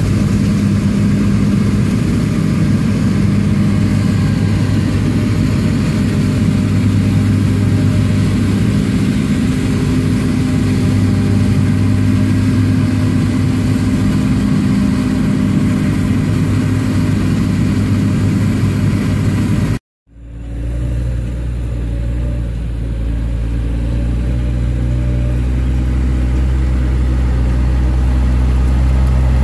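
A John Deere combine harvester running steadily under load while harvesting rapeseed. After a brief break about two-thirds of the way through, a New Holland T7060 tractor's six-cylinder diesel engine is heard running with a deeper tone, slowly growing louder.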